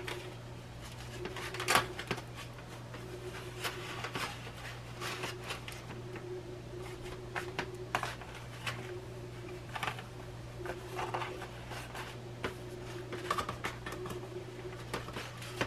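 Faint, irregular crinkles and taps of a disposable aluminum foil pan as pieces of pie crust are broken up and pressed into its corners by hand, over a steady low hum.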